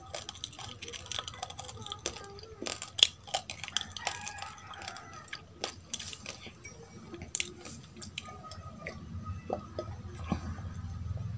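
Close-up chewing of dry roasted rice: a dense run of sharp, crisp crunches and clicks, with light clinks of tableware. Near the end a glass is lifted and drunk from.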